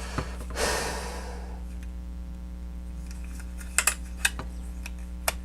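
Plastic parts of a transforming robot toy being handled and turned, giving a few sharp small clicks about four and five seconds in, over a steady electrical hum. A short breathy rush comes about a second in.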